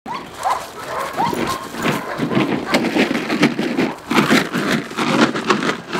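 Young shepherd dog barking in quick, repeated barks as it is worked against a decoy's padded bite sleeve in a test of its prey and bite drive.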